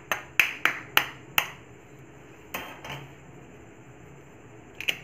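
A raw egg's shell tapped sharply to crack it open: a quick run of five taps, one more about a second later, and another near the end.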